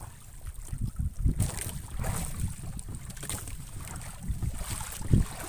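Wind buffeting the microphone in a low rumble over sea water sloshing against a small bamboo-outrigger boat, with a few short splashes and knocks as a wet gill net is pulled in over the side, the strongest thump about five seconds in.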